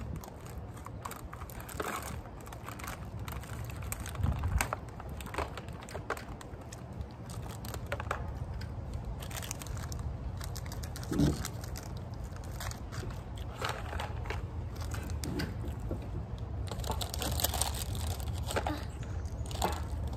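Scattered crinkling and crackling of a snack's plastic wrapper and cardboard box being handled, mixed with small clicks of metal chopsticks against a foam takeout container. A couple of louder knocks come about four and eleven seconds in, over a steady low rumble.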